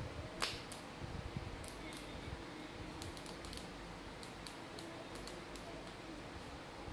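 Handling noise from a small Bluetooth keyboard's circuit board and plastic shell being turned over in the hands: light plastic clicks and ticks, with one sharper click about half a second in, over a faint steady hum.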